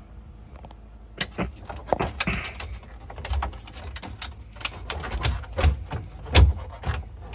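Samsung refrigerator tray being pushed and pulled up to free it from its retaining tab: a string of sharp clicks and knocks, the loudest about six and a half seconds in.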